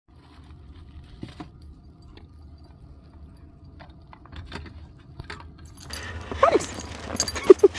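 A dog's collar tags clinking in small scattered clicks. Near the end, as things get louder and busier, the dog gives a few short whines.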